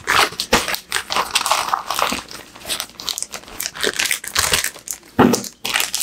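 Plastic packaging bag crinkling and rustling as it is handled and opened, with irregular crackles and a louder crackle about five seconds in.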